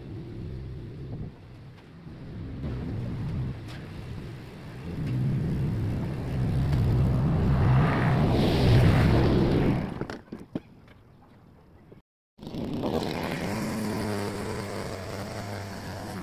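Petrol rotary lawn mower running under load, growing louder as it is pushed close past, loudest about eight to nine seconds in, then falling away. After a brief dropout a steady engine sound resumes at a lower level.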